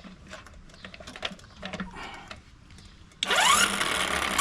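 A few light handling clicks, then about three seconds in a 12-volt electric impact wrench starts up loud, its motor whining up steeply in pitch and running on.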